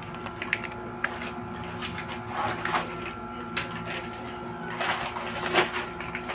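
Paper rustling and crinkling in short bursts as a sheet is handled, over a steady background hum.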